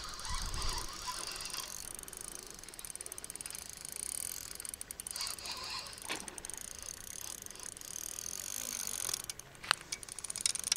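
A fishing reel being cranked, its gears giving a fast mechanical ticking, with a few sharper clicks near the end.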